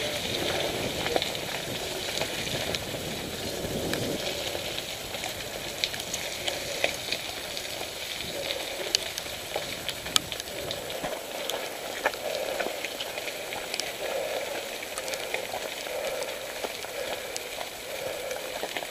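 Mountain bike tyres rolling over a wet gravel lane: a steady crackling crunch, dotted with many sharp ticks.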